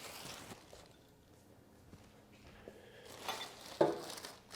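Plastic wrap and packing foam being cut and pulled off a cart: soft rustling, a quiet pause, then a few sharp crinkles about three and a half seconds in.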